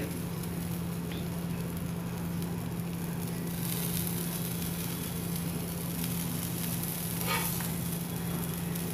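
Faint steady sizzling of a pizza base crisping in a nonstick pan on the heat, over a steady low hum. A short scrape of the cheese spoon comes about seven seconds in.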